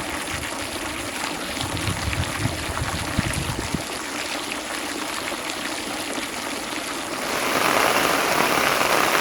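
Steady sound of running or falling water, with a few low knocks in the first few seconds, growing louder about seven seconds in.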